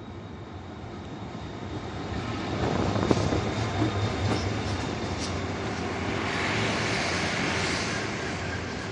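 Korail diesel locomotive pulling a Saemaeul-ho passenger train into the platform and slowing to stop. The engine's low hum and wheel clatter grow loudest as the locomotive passes about three seconds in. The passenger cars then roll by with a rising hiss and a faint steady tone.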